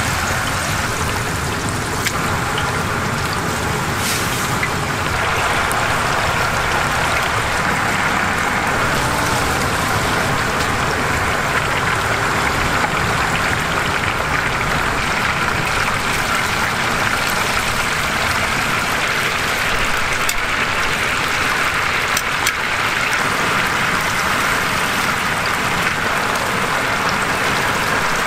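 Battered chicken deep-frying in hot oil in a cast-iron cauldron (gamasot): a steady, dense sizzle and bubbling, with a few faint clicks.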